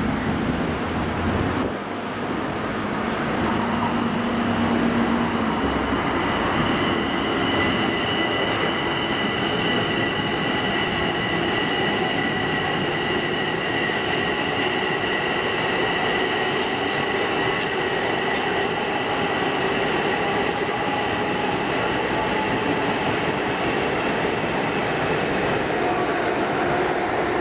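Long Island Rail Road train of Bombardier M7 electric multiple units towing unpowered Kawasaki M9 cars, passing close by: steady rolling noise of wheels on rail, with a high steady whine through most of the pass.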